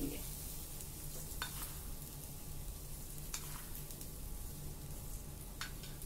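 Faint, steady sizzle of grated coconut heating in a kadai over a low gas flame. Powdered jaggery is spooned in from a plastic bowl, with a few faint clicks.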